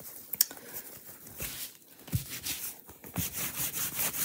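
A wet wipe rubbing back and forth over a plastic mesh stencil transfer lying on a work mat, in quick, uneven scrubbing strokes that become steadier near the end. A sharp click sounds about half a second in.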